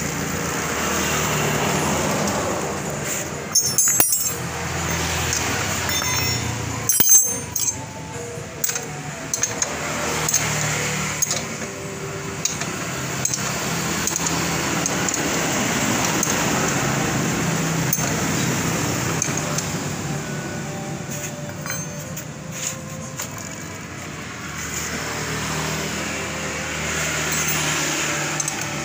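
Motorcycle drive chain and rear wheel being turned by hand, the chain running over the sprockets with scattered sharp metal clinks, loudest about four and seven seconds in. The chain is a worn, stretched one that has been refitted reversed to stop it rattling.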